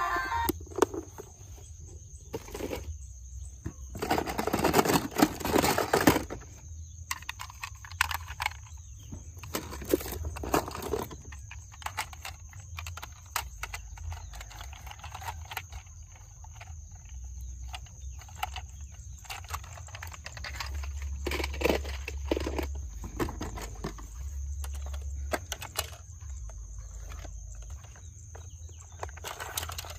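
Plastic toy cars being handled and rolled: irregular clattering and rattling, with a longer, louder stretch of clatter about four to six seconds in.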